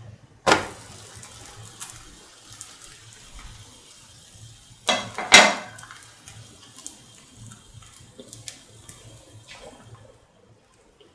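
Semolina pancake (rava dosa) sizzling faintly on a hot pan just after being turned over, with scattered crackling ticks. There is a sharp clatter about half a second in and two louder ones around five seconds in.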